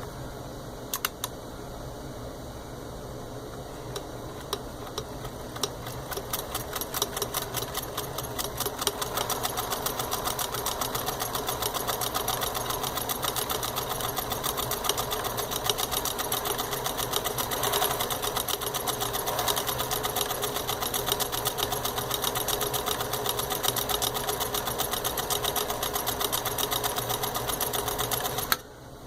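Pfaff 362 zig-zag sewing machine stitching one of its built-in patterns through fabric. The stitching starts slowly a few seconds in, speeds up to a fast, even stitch rhythm, and stops abruptly near the end.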